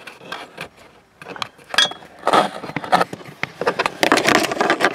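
Handling noise of a camera tripod being worked into the cramped space behind a dashboard: hard plastic and metal knocking, clicking and scraping. It is sparse at first and turns into a busy run of knocks and scrapes from about two seconds in, with one short ringing clink near two seconds.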